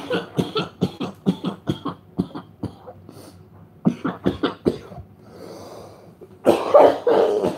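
A man's smoke-induced coughing fit from a joint: strings of short, rapid coughs, a drawn breath, then a harder, louder bout of coughing near the end.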